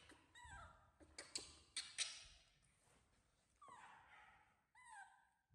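Baby monkey making three short, high whimpering calls, each falling in pitch: one about half a second in and two near the end. A few faint clicks come in between.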